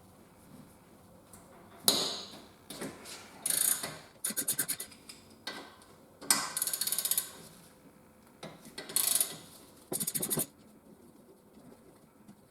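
Ratchet wrench with a 10 mm socket undoing brake caliper bolts: several short bursts of rapid ratchet clicking, with a sharp knock about two seconds in.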